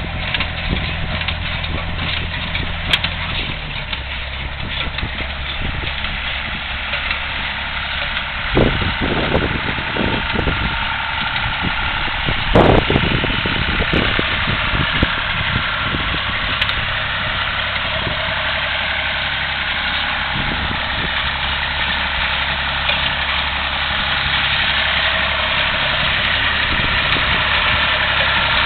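Engine running steadily, its note dropping slightly in pitch about four seconds in, with a few loud clanks and knocks around nine and thirteen seconds.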